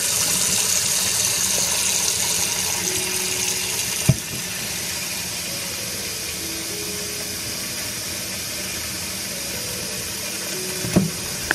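Kitchen tap running steadily into a stainless steel sink, filling it with soapy water. A sharp knock about four seconds in, after which the water runs a little quieter, and another knock near the end.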